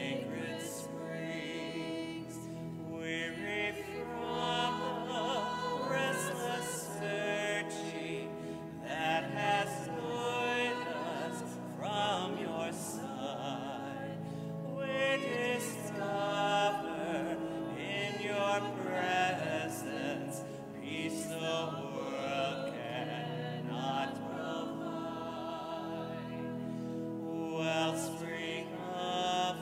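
A church congregation singing the gathering hymn together over sustained instrumental accompaniment.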